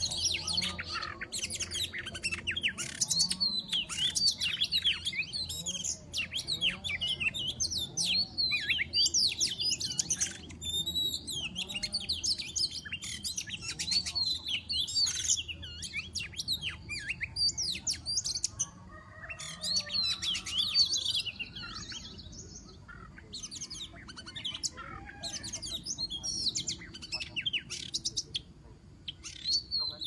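Oriental magpie-robin (kacer) song: a fast, varied, almost unbroken stream of whistled and chattering notes, thinning and growing quieter in the last third.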